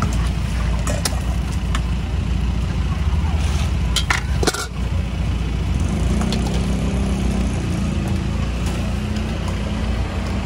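A steady low rumble, with a few sharp metallic clinks of cooking utensils at a street food stall about four seconds in.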